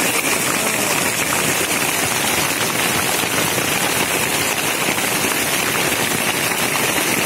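Hail falling hard on a wet paved road and brick pavers: a steady, dense crackle of countless small impacts.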